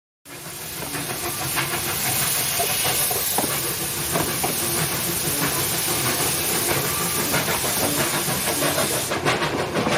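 Narrow-gauge steam locomotive hissing steam loudly and steadily over a low rumble. The hiss cuts off about nine seconds in, leaving a run of irregular clanks and knocks.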